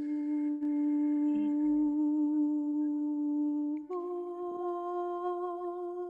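A woman humming a long, steady held note, then moving up to a higher held note about four seconds in.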